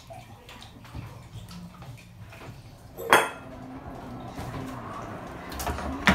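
Kitchen clatter of things being handled and set down: scattered light clicks and knocks, with one sharp, ringing clink about three seconds in. Near the end a low thump and a click come as an electric kettle is handled.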